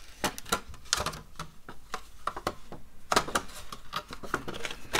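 Clear plastic folding gift box being unfolded and flexed by hand, its thin sheet crackling and clicking irregularly as the creases open. There is a quick cluster of sharper clicks about three seconds in.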